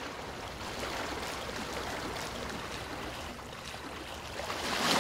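Sea surf washing onto a sandy beach: a steady rush of water that swells louder near the end.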